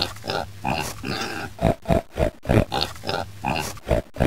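Cartoon voices making short, pig-like grunts in a quick rhythm, about three or four a second: the comic noises of the two hand puppets having sex.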